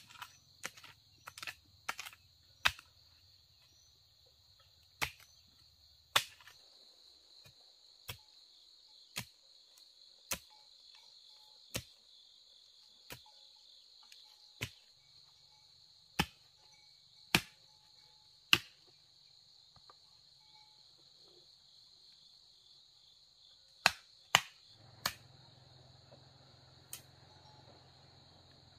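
Sharp, short knocks at irregular intervals, roughly one every second or two and bunched together at the start and again near the end, over a steady high-pitched drone of crickets or other insects.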